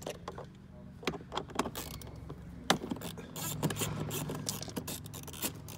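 A 10 mm socket tool working the bolts of a car's interior grab handle: scattered small metallic clicks and taps, with one sharper click about two and a half seconds in. A low steady hum sits underneath in the second half.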